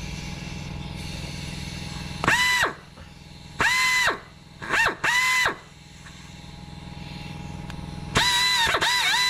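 Air drill run in several short bursts, each a high whine that spins up and winds down, drilling out a broken exhaust manifold stud in a 1HZ diesel's cylinder head. Under it, the steady hum of an air compressor running.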